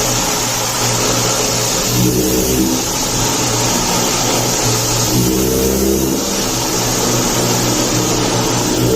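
A machine's motor running steadily under a loud hiss, with a humming tone that swells and fades about every three and a half seconds.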